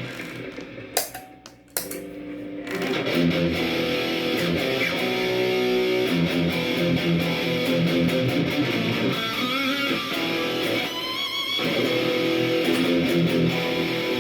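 Electric guitar played through an xVive Golden Brownie overdrive boosted by a TS Mini, with DD20 delay, into a Marshall AVT50 amp, for a JCM800-style tone. After a short break near the start, overdriven chords ring out, with a bent lead note wavering with vibrato about ten seconds in.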